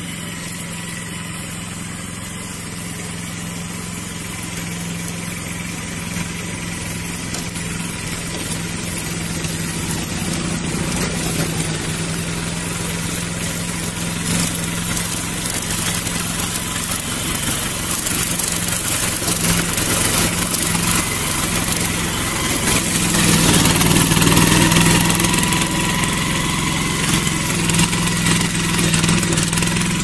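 Grass cutter's small engine running steadily. It grows louder with a rising hiss through the second half, loudest about three-quarters of the way in.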